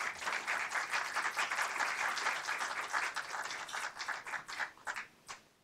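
Audience applauding a speaker's introduction, thinning out and dying away about five seconds in.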